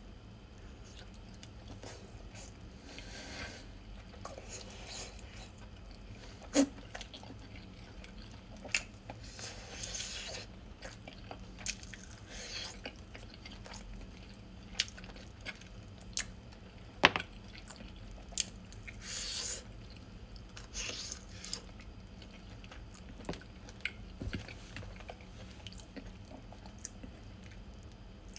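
A person eating crispy baked chicken wings: intermittent bites and chewing, and meat pulled from the bone. Short sharp clicks and smacks come every few seconds, the loudest about 17 seconds in.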